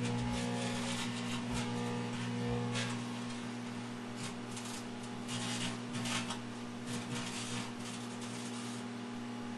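Microwave oven running with a steady electrical hum, with irregular crackling bursts from arcing as a CD and a matchbook burn inside it.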